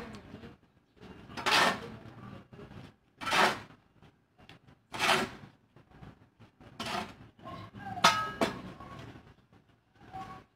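Metal shovel scraping heavy volcanic ash across a concrete yard, in about five separate strokes spaced roughly two seconds apart, with a sharp clank of the blade a little past the middle.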